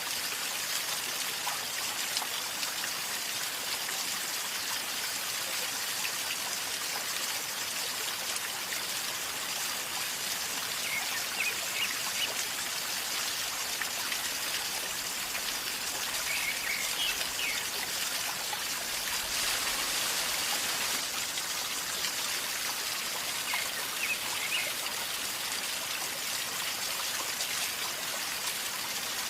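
A river flowing calmly over stones, a steady gurgling and trickling of water. A few faint high chirps come through the water sound about a third of the way in, midway, and near the end.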